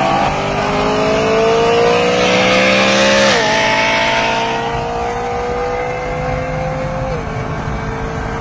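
BMW M3 4.0-litre V8 at full throttle in a highway roll race, its pitch climbing in each gear with upshifts at the start, about three and a half seconds in, and about seven seconds in, after which it holds nearly steady.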